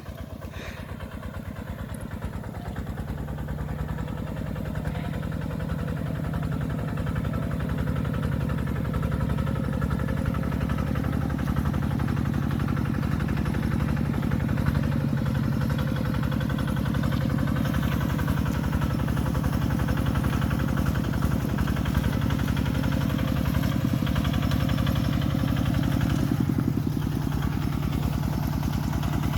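Tractor engine running with a steady chugging beat. It grows louder over the first several seconds, then holds at an even level.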